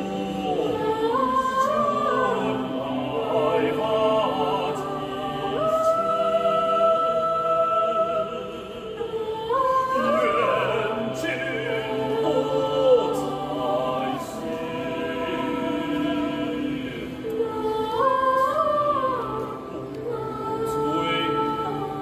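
Mixed choir singing held chords in several parts, the upper voices rising in swells a few times while the lower voices sustain beneath.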